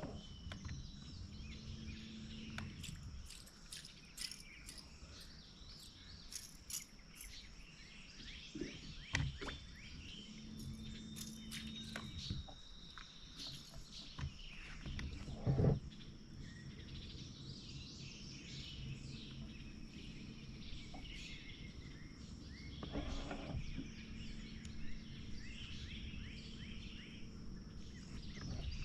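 Birds chirping and calling over a steady high insect buzz, with a low hum that comes and goes and a few sharp knocks, the loudest about halfway through.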